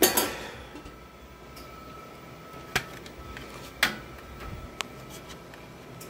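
Sharp clicks and knocks of a controller keypad and its connector being handled and plugged in. The loudest comes at the start, then two more about a second apart, and a smaller one a second later. A faint steady high tone runs underneath.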